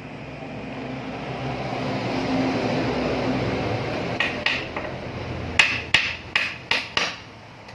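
Hammer striking the metal parts of a noodle-making machine under assembly: about seven sharp, ringing knocks in the second half, after a rumbling mechanical noise that builds over the first few seconds.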